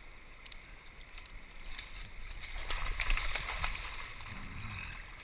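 Shallow river water running over a gravel bed, with a burst of splashing and sloshing between about two and a half and three and a half seconds in as a king salmon is handled in a landing net in the water.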